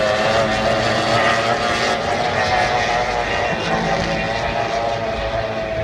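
Racing powerboat's engine running flat out at high speed, a steady high-pitched drone that fades slightly as it goes.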